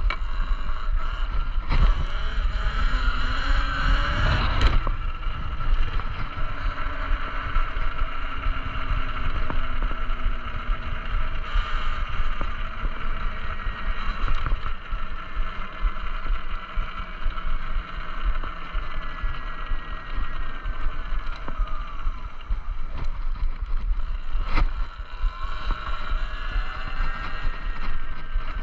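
Electric motor of a Talaria Sting electric dirt bike whining under way: its pitch rises as it speeds up, slowly falls as it slows, and rises again near the end. Wind rumbles on the microphone underneath, with a sharp knock about five seconds in and another near the end.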